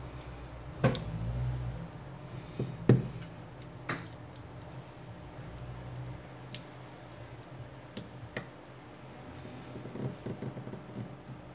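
Scattered sharp clicks and taps of an opened smartphone being handled and pressed with the fingers on a silicone repair mat, loudest about one and three seconds in, with a quick run of small clicks near the end, over a low steady hum.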